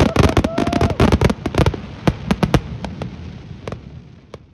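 Fireworks display: aerial shells bursting in rapid sharp cracks and bangs, densely packed for the first second and a half, then thinning to scattered single pops that fade away.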